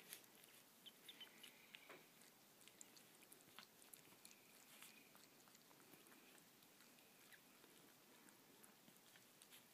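Very faint wet clicking and smacking of a Pomeranian mother licking her newborn puppies as they nurse, scattered small clicks over near silence.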